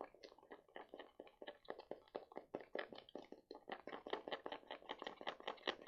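Rapid, uneven clicking and tapping, several strokes a second, as homemade jelly slime is stirred and worked in its container.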